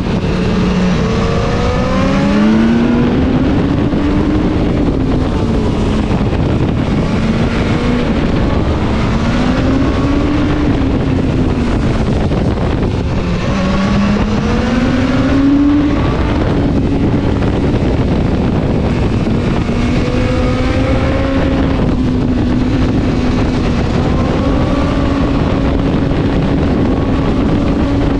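BMW S1000-series motorcycle's inline-four engine under way, its pitch rising and falling several times as the revs change, then holding steady for the last ten seconds or so.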